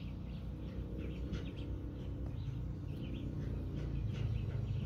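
Small birds chirping in short, repeated calls over a steady low background rumble that grows a little louder near the end.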